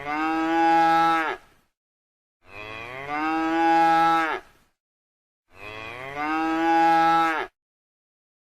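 Cow mooing three times: the same drawn-out call of about two seconds, repeated at even intervals with silence between.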